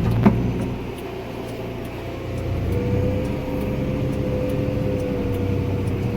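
Farm machinery engine running steadily, with a steady whine that comes in about two and a half seconds in and a single click near the start.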